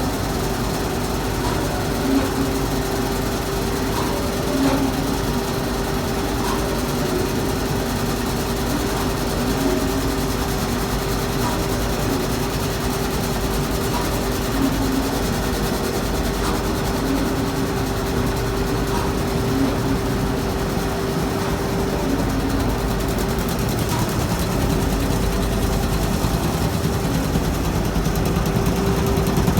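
Emasan EHC240 industrial carpet-beating machine running: a steady mechanical hum with one constant tone and a few light knocks.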